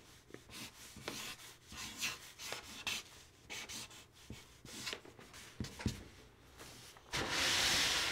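Marker tip scratching and rubbing across paper in short, uneven strokes as letters are written, with a louder hiss lasting just under a second near the end.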